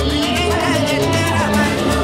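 Salsa music playing with a steady percussive beat.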